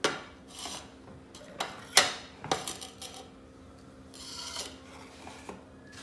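Knife cutting coriander leaves: a handful of sharp taps of the blade on the cutting surface, the loudest about two seconds in, and a brief scraping sound a little after four seconds.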